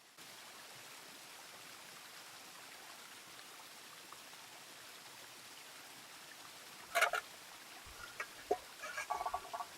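Steady rush of a flowing stream, with a sharp knock about seven seconds in and a run of short clicks and clatters near the end.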